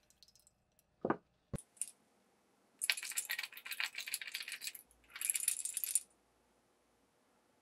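A small clear capsule from the survival knife, likely its compass, shaken so the loose piece inside rattles against the shell: its liquid has almost all leaked out. A few light knocks come first, then two spells of quick rattling, the first about two seconds long and the second shorter.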